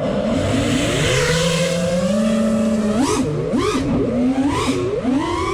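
FPV racing quadcopter's brushless motors whining under throttle, the pitch swooping up and down several times in quick succession about three seconds in as the throttle is punched and chopped.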